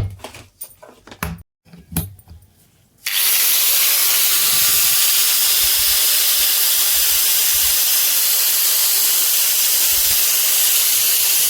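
A few knocks and clicks, then about three seconds in a loud steady hiss starts abruptly and holds level.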